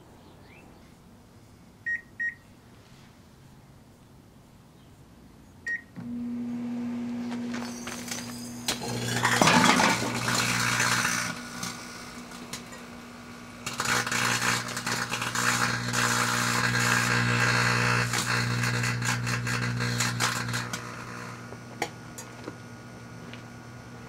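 Three short keypad beeps from a 1987 GE microwave oven, then the steady hum of two stacked microwave ovens running. Over the hum come two long bouts of loud crackling and buzzing from plant-grow light bulbs arcing into plasma and burning inside the ovens.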